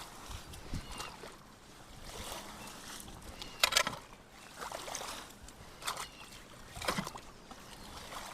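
Water splashing and sloshing in irregular strokes, about five in all, the loudest about three and a half seconds in, as debris is worked loose from a clogged culvert.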